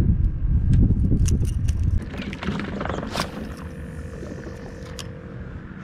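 Wind buffeting the microphone in a loud, low rumble that eases off about two seconds in. Then comes a short rising whoosh ending in a sharp click, with a few faint clicks after.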